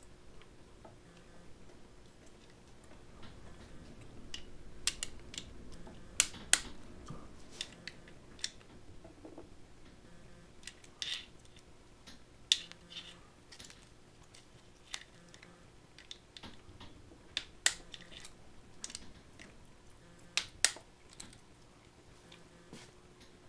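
Irregular sharp metallic clicks and clinks, a few at a time with pauses between, from a socket wrench and extension working on the aluminium case of a Rotax V800 four-stroke engine.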